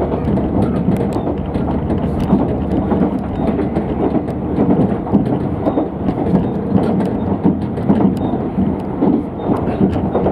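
Tarumi Railway diesel railcar running along the line, heard from inside the car: a steady engine drone under the rumble of the wheels on the rails, with scattered sharp clicks.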